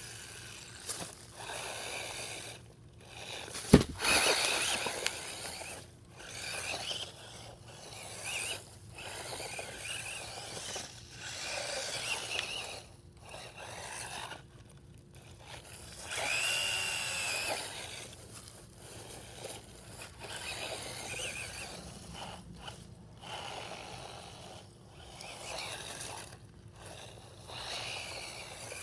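Gptoy two-wheel-drive electric RC buggy driving through loose dirt: scraping, gritty tyre and chassis noise in uneven spurts, with a sharp knock about four seconds in and a motor whine that rises and falls about two-thirds of the way through.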